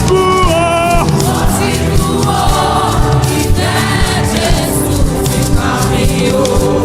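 Live gospel worship music: a choir of singers holding long notes over a full band, with a steady beat of drum hits.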